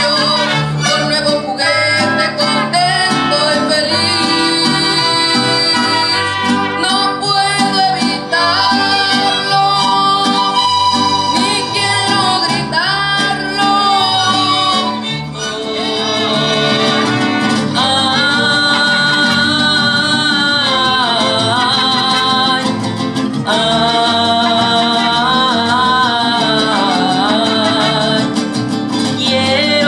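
Live mariachi band of violins, trumpets and guitars playing, with a boy singing over it.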